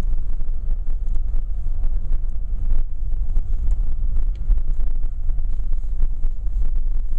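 Wind buffeting the microphone: a loud, steady, fluttering low rumble with faint ticks throughout.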